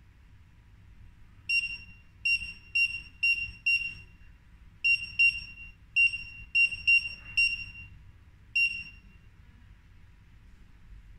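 Mini 1D barcode scanner giving about a dozen short, high-pitched beeps in irregular runs over several seconds; each beep is the scanner's good-read signal as it decodes the barcode on a box.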